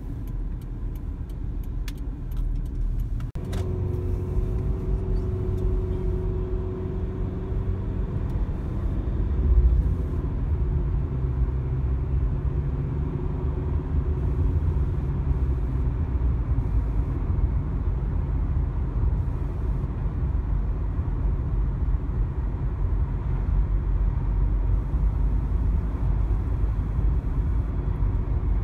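Steady road and engine rumble of a car driving, heard from inside the cabin, with a few sharp clicks in the first few seconds and a faint engine tone coming in about four seconds in.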